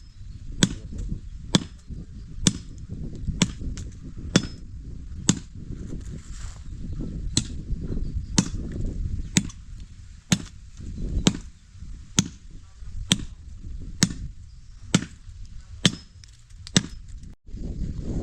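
Repeated sharp blows of a hand tool, about one a second in an even rhythm.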